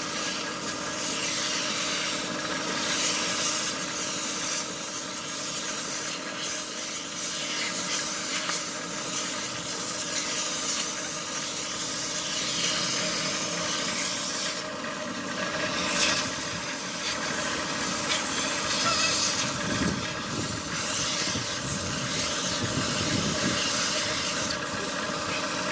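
Compressed air hissing from an air-compressor blow nozzle as it blows dust out of a truck's air filter element, rising and falling in strength as the nozzle moves, with a brief drop about halfway through.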